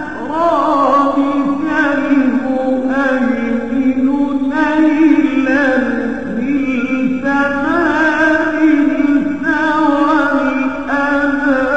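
A voice singing an Arabic devotional nasheed about the Prophet's night journey, in long ornamented phrases that waver up and down in pitch, over a steady low drone.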